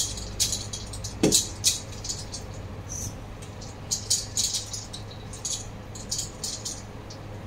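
Ice cubes clinking against a stainless steel bowl as a hand stirs them through water: a run of short, irregular clicks and rattles, with a louder knock about a second in.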